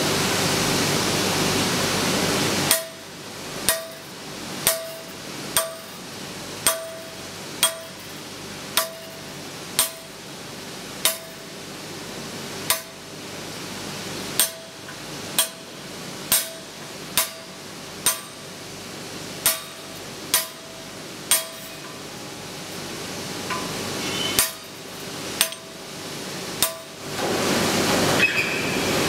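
Hammer taps on a carding cylinder wound with metallic card wire, about twenty strikes roughly a second apart, each with a short metallic ring. A steady machine whir runs before the taps begin and starts again near the end.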